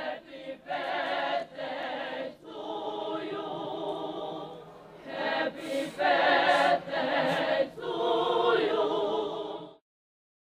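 A crowd of voices singing a birthday song together in chorus, in two phrases that each end on a long held note. The singing cuts off abruptly near the end.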